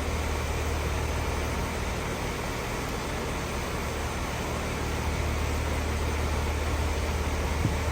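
A 2020 Heil N4H4 2-ton heat pump's outdoor unit running in cooling mode: a steady low hum from its Copeland scroll compressor under the even rush of the condenser fan. A brief light knock comes near the end.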